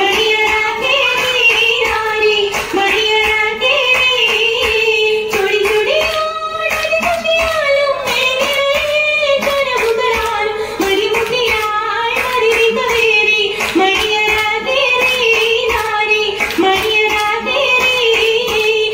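A group of girls singing an Oppana song together, with regular rhythmic hand-clapping in time with the song.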